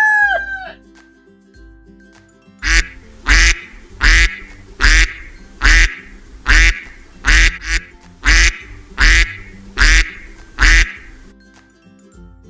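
A duck quacking about a dozen times in an even run, roughly one quack every three-quarters of a second, over faint background music. It follows the tail of a rooster's crow.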